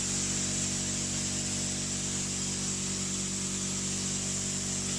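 100-litre air compressor running steadily, muffled inside a wooden sound-deadening box with its door closed: an even, level hum.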